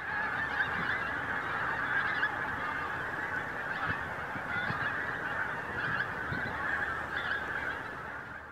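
A large flock of wild geese honking as they fly over, many calls overlapping into a continuous clamour that fades away at the end.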